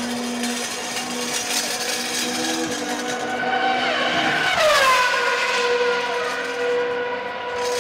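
Ferrari Formula 1 car engines running at idle, with one rising in pitch and then dropping sharply about four seconds in before settling into a steady, higher idle note.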